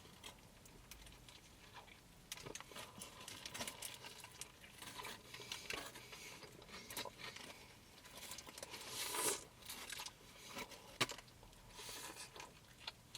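Food wrapper being handled: crinkling and rustling with scattered light clicks, loudest around nine seconds in.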